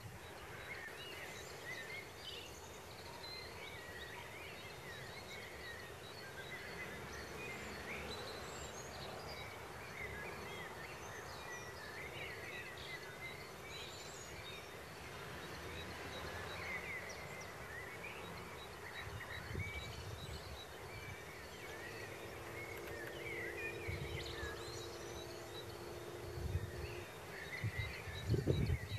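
Outdoor farmyard ambience with many small birds chirping and twittering faintly throughout. A steady low hum runs for several seconds past the middle, and there are a few low rumbles near the end.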